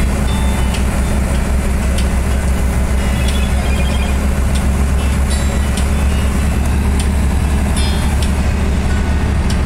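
Steady low rumble of a vehicle under way, with scattered small clicks and a few brief high squeaks.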